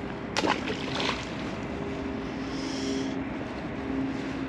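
A steady motor hum, like a vehicle engine running, holding a constant pitch, with a brief sharp noise about half a second in and a smaller one about a second in.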